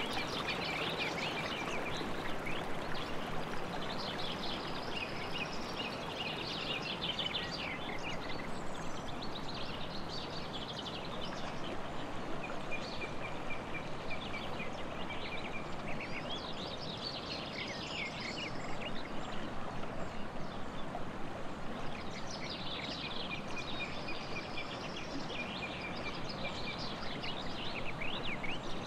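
Songbirds singing in repeated high, trilled phrases every few seconds over the steady rush of a flowing river.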